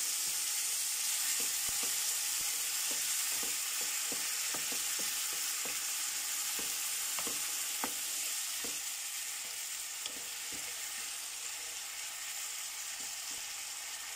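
Yogurt-marinated chicken with onion and garlic sizzling steadily in hot oil in a non-stick frying pan. A wooden spatula stirs it, scraping and tapping on the pan at irregular moments.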